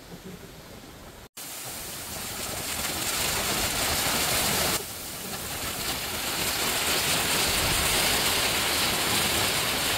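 Small waterfall pouring down a rock face onto boulders: a steady, dense rush of falling water that comes in suddenly about a second in and grows louder, with an abrupt drop near the middle before it builds again.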